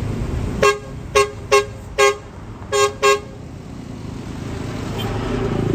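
Tour bus telolet horn tooting six short blasts at the same pitch in a quick uneven rhythm, followed by the bus's engine rumble building up near the end.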